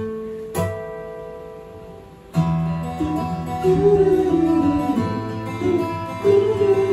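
Acoustic guitar: a chord struck twice and left to ring out, then, from about two and a half seconds in, steady strummed playing. A sung line comes in over the guitar about a second later.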